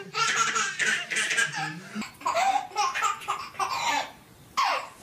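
A baby laughing in repeated short bursts, with high squeals that fall in pitch.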